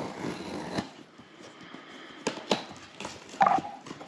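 Packaging being handled as a GoPro Hero 12 box is opened: rustling, then several sharp clicks and snaps of cardboard and plastic.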